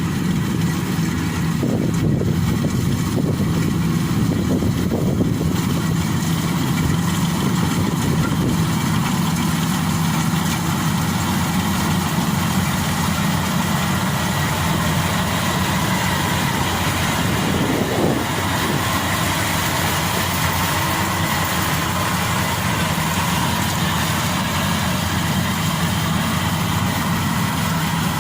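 Rice combine harvester running steadily at work, its engine hum constant throughout, with a higher whine joining in about halfway through and one short knock about two-thirds of the way in.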